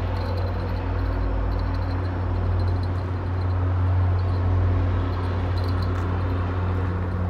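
Steady low-pitched hum over an even rumble of background noise, with a few faint ticks.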